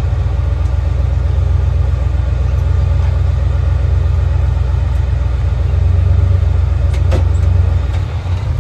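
A Jeep's engine running with a steady, loud low rumble, with a single sharp click about seven seconds in.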